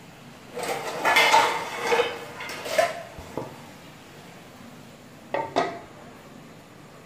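Metal cookware clattering: a run of ringing clanks lasting about two seconds, then two sharp knocks a few seconds later.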